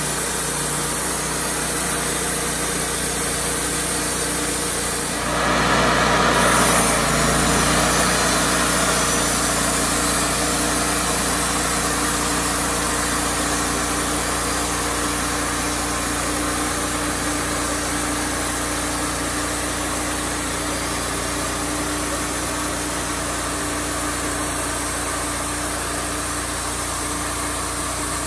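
Wood-Mizer LT35HD portable band sawmill running, its gasoline engine steady while the band blade saws through a small pine log. The sound grows louder and rougher about five seconds in, then settles back to a steady run.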